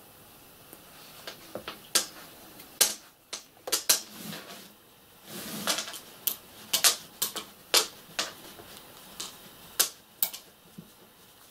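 Hand-sewing through a stuffed fabric toy's head with a long needle: irregular sharp clicks and taps from the needle and handling, with a rustle of fabric and thread lasting about a second halfway through.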